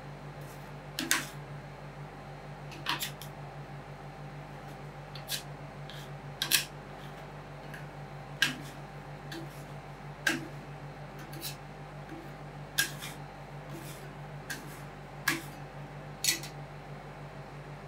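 Metal spatulas clicking and tapping against the frozen plate of a rolled ice cream station, about a dozen sharp, irregular clicks roughly one a second, over a steady low machine hum.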